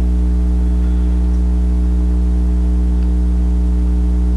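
Loud, steady electrical mains hum: one low drone with a buzzy stack of overtones above it, unchanging throughout.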